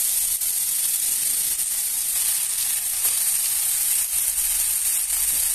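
Chopped onion and raw ground beef sizzling in hot pork lard in a pot: a steady frying hiss.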